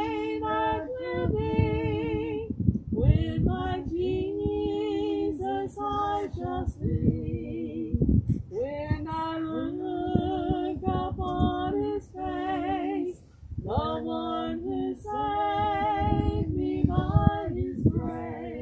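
A woman singing a slow song, with long held notes and vibrato, over a low rumble of wind on the microphone.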